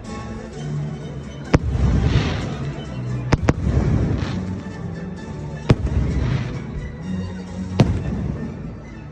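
Fireworks shells bursting with sharp bangs, about a second and a half in, twice in quick succession near three and a half seconds, then near six and eight seconds, with crackling between the bangs. Orchestral music plays underneath.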